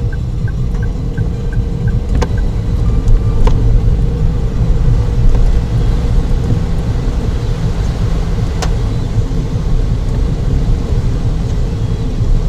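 Car driving in heavy rain, heard from inside the cabin: a loud, steady low rumble from the engine and road with a steady hum, and a few isolated sharp clicks.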